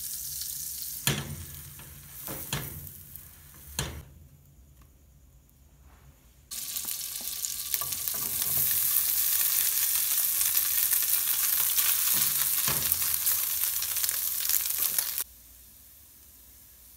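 Butter sizzling in a hot nonstick frying pan with a few knocks, fading. Then shredded chicken hits the fat and a loud, steady sizzle starts suddenly, running about eight seconds before it cuts off abruptly.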